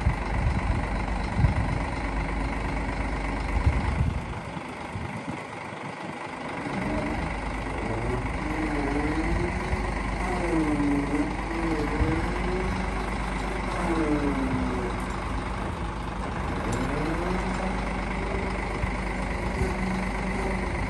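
Scania P94 truck engine running steadily while its Palfinger PK 29002 hydraulic loader crane is operated. From about a third of the way in, a whine rises and falls in pitch again and again as the boom lifts and extends. A few sharp knocks come in the first few seconds.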